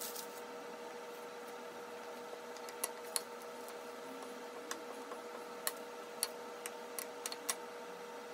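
Wooden rolling pin rolling out a ball of bread dough on a silicone mat, with a scatter of short light clicks and taps in the second half, over a steady hum.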